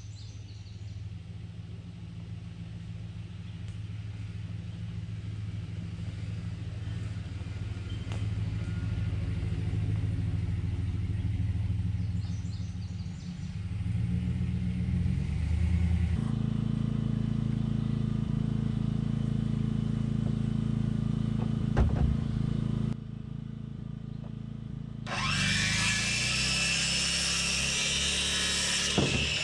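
A steady engine hum that shifts in pitch partway through, then about 25 seconds in a circular saw starts and cuts through lumber, loud and high, until near the end.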